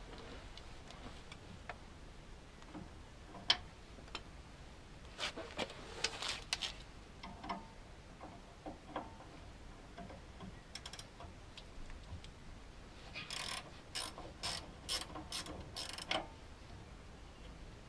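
Hand ratchet wrench clicking in short runs, with scattered sharp clinks of metal tools between them.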